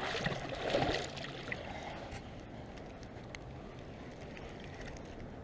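Stream water running, a steady rushing noise, with a louder burst of noise through about the first second.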